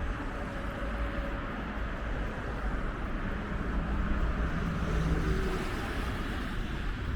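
Steady city street ambience dominated by the low rumble of passing traffic, with faint engine hums coming and going.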